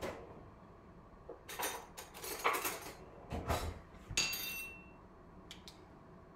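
Kitchen clatter of dishes and utensils being handled and set down on a counter: a run of clinks and knocks from about a second and a half in, one of them ringing briefly about four seconds in.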